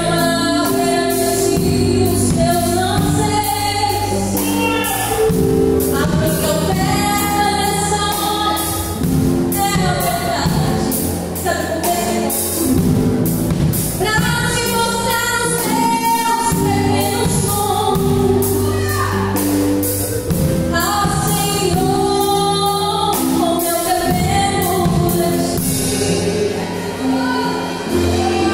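A woman sings a gospel praise song into a microphone over amplified musical backing with a steady beat.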